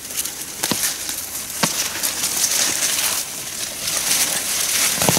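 Dry leaves and plant stems rustling and crackling as garden plants are pulled up by their roots from the soil, with a few sharp snaps.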